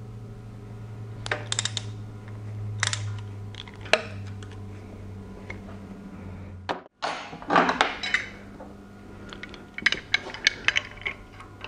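Metal hand tools clinking and a socket ratchet clicking in short runs as a camshaft gear bolt and gear puller are worked on a bare engine, with a low steady hum through the first seven seconds.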